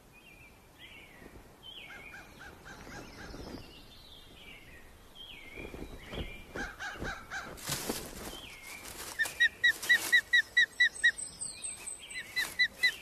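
Osprey calling: a few slurred, falling whistles, then from about nine seconds in a loud, rapid run of short whistled chirps, about five a second.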